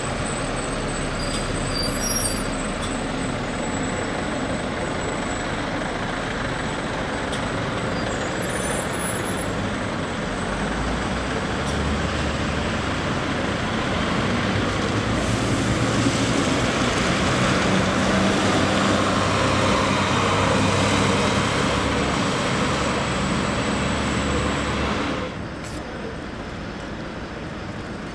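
Diesel buses running in town traffic: a bus engine grows louder through the middle and fades, then the sound drops suddenly to quieter street traffic near the end.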